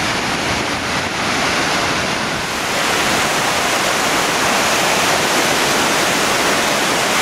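Sea surf breaking and washing on the shore, a steady rush of water that swells a little louder about two and a half seconds in.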